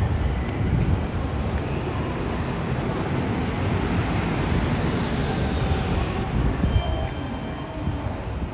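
City street traffic: a steady rumble of vehicles, with one passing close about halfway through.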